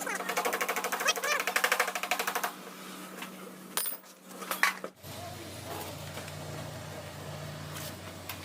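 Rapid, evenly spaced mechanical clicking, about a dozen clicks a second, for the first couple of seconds, then a few separate clicks. About five seconds in, the sound changes abruptly to a steady low hum.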